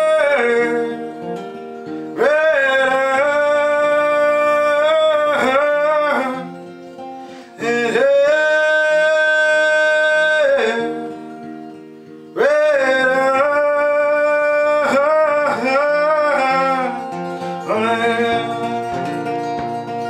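Acoustic guitar played under a man's wordless singing: held, bending vocal notes in three phrases of a few seconds each, with the guitar carrying on alone between them.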